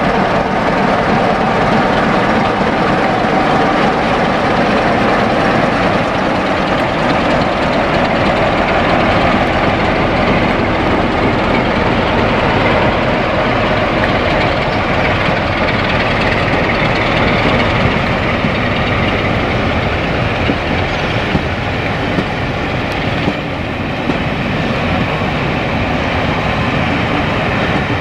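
Class 47 diesel locomotive's Sulzer engine running as it hauls a train of coaches past and away, with the wheels of the coaches rolling steadily on the track.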